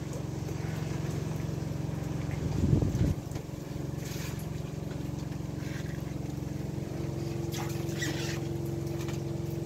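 Steady low machine hum running throughout, with brief wet rustling and slapping as small fish are pushed and flip about on a wet tarp-covered table, loudest about four seconds in and again near the end.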